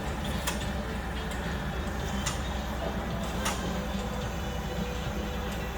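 An engine running steadily, with a few sharp clicks over it.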